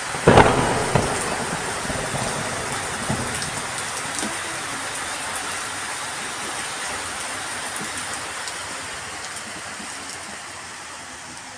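Heavy rain falling steadily, a continuous hiss that slowly gets quieter. A loud sudden noise comes about a third of a second in and dies away over a second or so.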